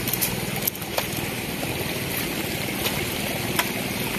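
Twigs and small branches snapping underfoot, a few sharp separate clicks, over a steady faint hum and rushing background noise.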